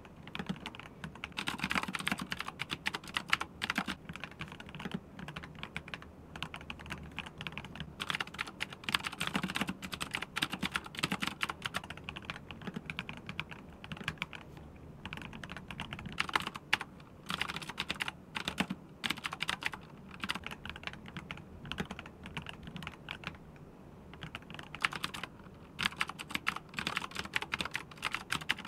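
Fast typing on an ROG Strix Scope II 96 Wireless mechanical keyboard with ROG NX Snow switches and sound-dampening pads inside: a dense, steady patter of keystrokes. Near the end the typing changes to a full-size blue-switch mechanical keyboard, with sharper clicks.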